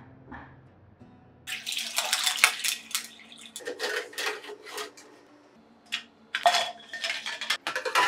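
Wire spider strainer scooping boiled eggs out of a saucepan of water: water sloshing and splashing with clinks of the metal mesh and eggs against the pot, in several bursts from about a second and a half in.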